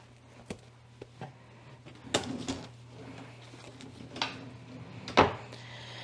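Kitchen handling sounds as oven mitts are taken from a drawer and the open oven is reached into: scattered light clicks and clatters, then one sharp knock about five seconds in, the loudest sound. A steady low hum runs underneath.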